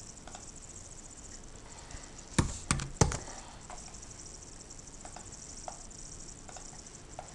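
Computer keyboard keys struck three times in quick succession, a sharp tap each, with a few faint clicks scattered before and after.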